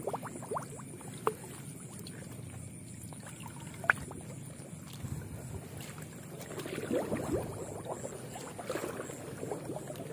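Hand net swept and scooped through shallow water: small splashes and water dripping, the sloshing growing busier about two-thirds of the way through. A single sharp tick about four seconds in.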